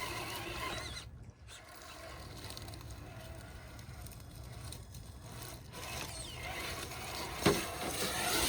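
Traxxas TRX-6 6x6 RC crawler driving: its electric motor and geared drivetrain whir faintly as the tyres scrape over the ground, over a low steady rumble.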